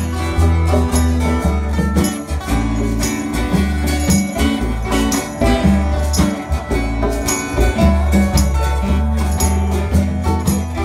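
Upbeat country-style music: plucked guitar over a steady bass line, with a jingling percussion beat.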